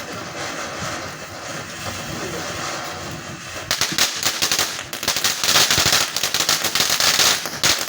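A string of firecrackers going off in a long, rapid crackling run that starts about halfway through, after a few seconds of steady background noise.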